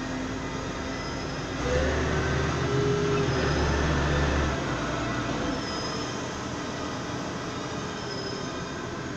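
Forklift running, heard from the operator's cab: a steady mechanical din with squeaky high tones. A deeper, louder engine drone swells in about two seconds in and drops away about halfway through.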